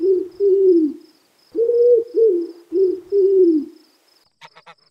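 Pigeon cooing: two bouts of low coos, each coo dipping in pitch, one near the start and a run of four from about one and a half seconds in.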